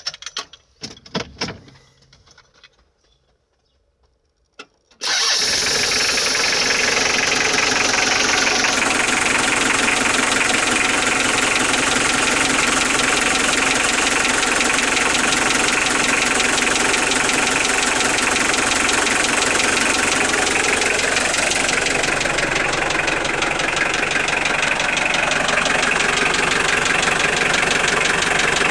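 Cold engine cranked briefly and catching about five seconds in, then running steadily at idle with a rhythmic knock. The owner says the knock sounds like a rod knock but isn't one, since he has checked the rod bearings.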